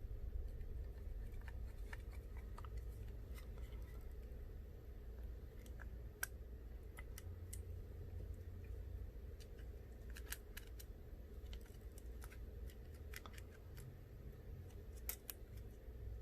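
Faint, sparse clicks and ticks of a precision screwdriver and tiny screws against a phone's metal back plate as the screws are fitted, over a steady low hum.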